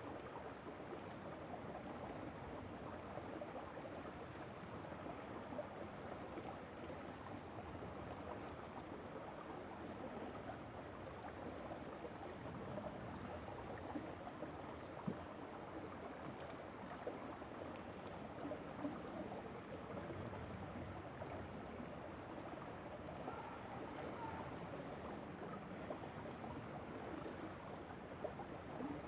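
A small river flowing and babbling over stones, a steady rushing with many little splashes and the occasional louder plop.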